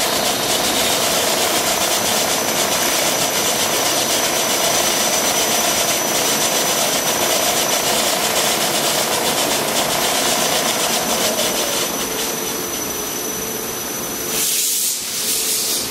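Machine-driven drill bit running and cutting deeper into a frozen steel action screw head, a steady running noise with a cutting tone that fades about three quarters of the way through. A short burst of hiss near the end.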